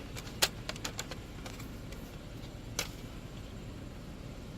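Light clicks and taps of a replacement touchscreen digitizer glass being handled and seated into its plastic frame, over low steady background noise. The sharpest clicks come about half a second in and again a little under three seconds in.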